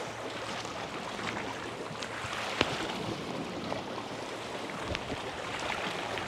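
Seaside ambience: a steady rush of wind and sea water, with scattered small clicks and one sharp tap a little over two and a half seconds in.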